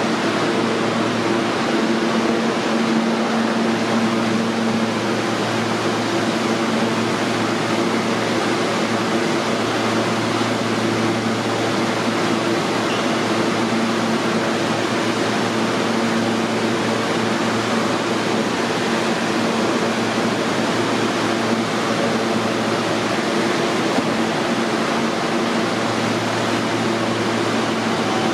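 An R160A subway train standing at the platform with its doors open: its air-conditioning and auxiliary equipment give a steady rush with an even, low hum.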